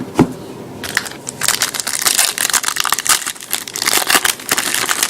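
A trading-card pack wrapper being torn open and crinkled, a dense crackling from about a second in, after a short thud at the start.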